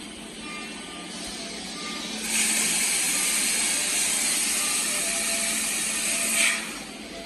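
Industrial robot's welding arc hissing steadily for about four seconds, starting sharply a little over two seconds in and cutting off abruptly near the end, over a low hum of machinery.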